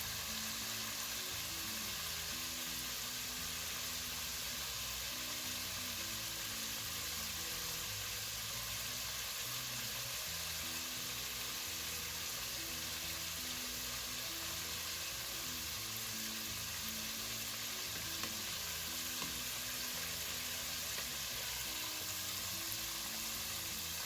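Floured chicken pieces deep-frying in vegetable oil, a steady, even sizzle of the hot oil bubbling around them. The chicken is still in the early, vigorous stage of frying, not yet cooked through and floating.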